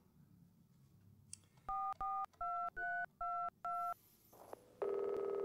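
Telephone keypad dialing: six short touch-tone beeps, each two notes at once, changing in pitch from key to key. Near the end a steady tone comes on the line.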